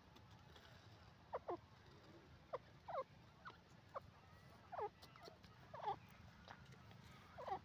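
Grey francolin giving soft, short call notes, each falling in pitch, about nine of them at irregular intervals.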